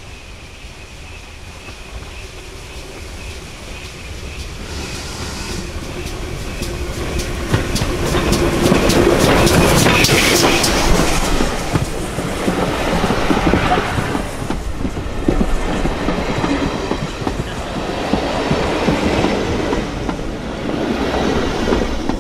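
GWR 4500 class small prairie tank engine 4555 and its coaches approaching and passing close by on a single line, getting louder to a peak about ten seconds in, with the wheels clicking sharply over the rail joints. The coaches then rumble and click past, and the sound dies away near the end.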